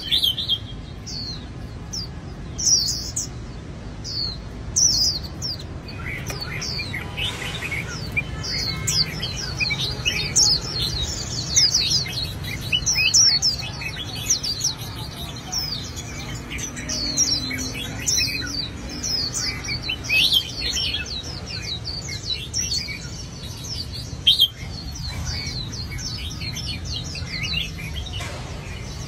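Songbirds chirping and singing, a dense stream of short, quick high chirps that keeps going without pause, over a steady low hum.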